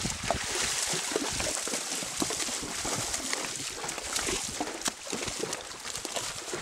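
Horses wading across a shallow rocky stream: hooves splashing and knocking irregularly on the stones over the steady trickle of running water.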